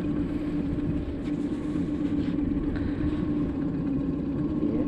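Outboard motor of a fishing boat running steadily, an even drone that does not change in pitch.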